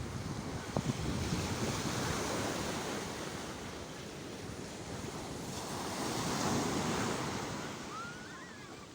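Sea waves washing onto the shore, swelling louder twice as waves break and recede. A short warbling whistle comes near the end.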